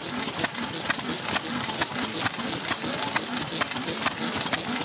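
A machine running with a steady, even clicking beat, a little over two clicks a second, over a constant noisy hum.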